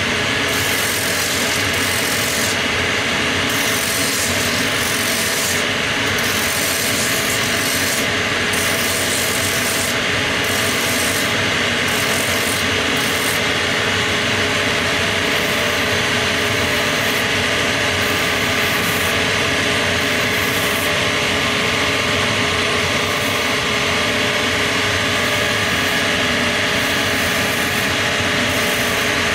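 Shoe finishing machine running steadily, its abrasive sanding drums rasping against the edges of a boot's soles and heel. The sanding comes and goes in passes as the boot is pressed to the wheel and lifted off.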